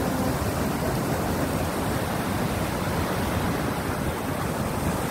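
Sea surf breaking and churning through a channel between rock ledges, a steady rush of foaming water.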